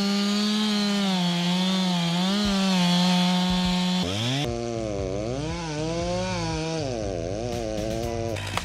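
Chainsaw cutting into wood: the engine runs at high speed, its pitch wavering and sagging as the chain takes load. Just after the middle the pitch drops, then climbs and swings up and down several times.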